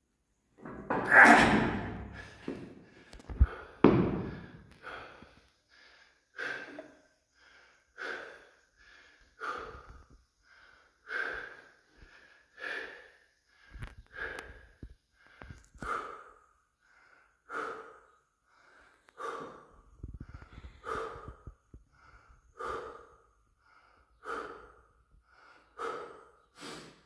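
A man's heavy, strained breathing while holding a 732.5 kg barbell across his shoulders: a loud forced exhale about a second in and a dull thud a couple of seconds later, then short hard breaths about every one and a half seconds.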